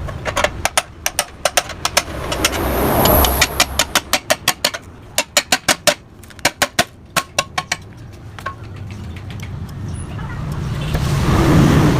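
Quick runs of hammer blows on the metal of a Yamaha RX-King exhaust as it is knocked open, about four or five sharp strikes a second with short pauses between runs. The blows stop after about eight seconds, and a background rumble swells near the end.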